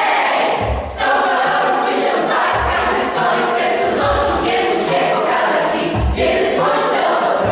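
Children's vocal ensemble singing a pop song together over a backing track with a steady low beat.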